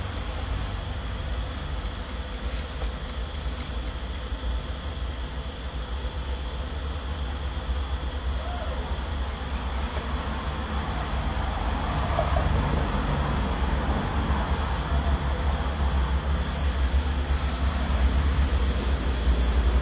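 A cricket chirping in a steady, fast-pulsing high trill, over a continuous low rumble that grows a little louder about halfway through.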